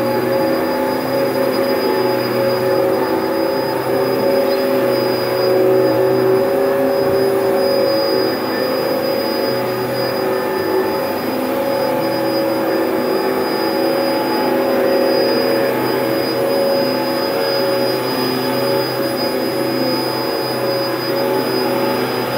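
Dyson DC01 upright vacuum cleaner running steadily, a motor hum with a thin high whine over it.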